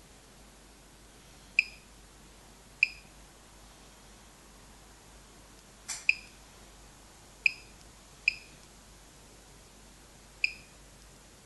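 Gamma-Scout Geiger counter ticker giving short high beeps at irregular intervals, one beep per particle detected by its Geiger-Müller tube; only six come in about eleven seconds, a low count rate, with the displayed dose rate falling to about 0.17 µSv/h. A short click comes just before the beep about six seconds in.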